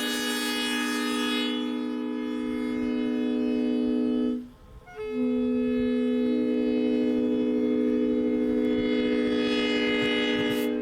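A multi-chime locomotive air horn sounding two long blasts of a steady chord, with a short break about four and a half seconds in. In the second blast one of the low notes comes in about a second late.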